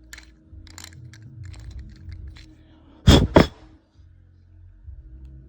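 Light metal clicks and scraping from a hand thread-cutting tool being worked on a stripped 5/16-inch bolt, then two loud knocks a fraction of a second apart about three seconds in.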